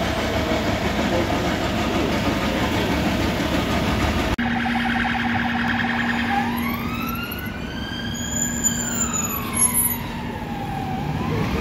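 A fire engine's engine runs steadily at standstill, then the sound cuts abruptly to an emergency vehicle siren. The siren gives a fast warble for about two seconds, then one slow wail that rises and falls again.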